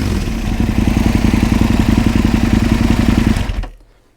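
Aprilia RSV Mille R's V-twin engine idling steadily through an Akrapovic exhaust, settling after a blip of the throttle. The sound cuts off suddenly near the end.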